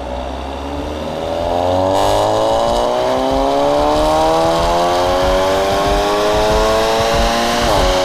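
Volkswagen Golf R's turbocharged 2.0 TSI four-cylinder under hard acceleration, its note rising steadily in pitch for about seven seconds, then dropping sharply at an upshift near the end.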